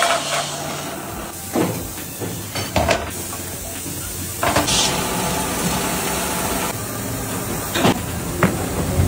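Moulding-press workshop noise: a short hiss of compressed air from a press about four and a half seconds in, with several sharp clanks of metal mould trays being handled over a steady machine hum.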